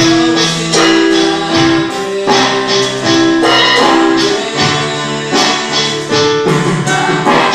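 A small band playing live: held chords on a digital keyboard over an electric bass line, with an electronic drum kit keeping a steady beat.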